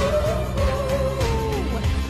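Background pop song: a melody note is held for over a second and then slides down, over a steady bass.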